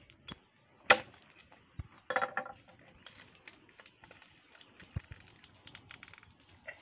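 Machete chopping a roasted goat head in two on a wooden plank: a few sharp blows, the loudest about a second in, then a quick run of cracks about two seconds in as the head splits. After that, quieter knocks and handling of the meat and bone, with a single thud about five seconds in.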